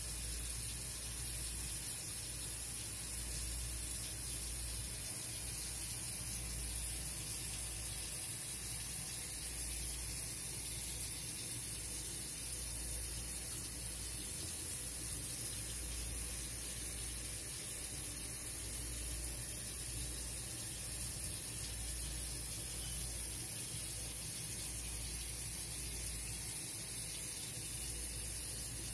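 Steady hiss with a low hum underneath, even throughout with no distinct sounds standing out.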